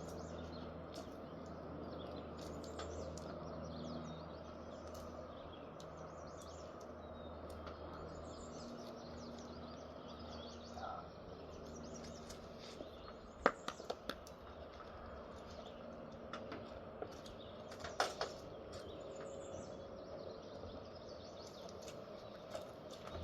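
Outdoor ambience: small birds chirping over a steady low hum, with a few sharp clicks about halfway through and again a few seconds later.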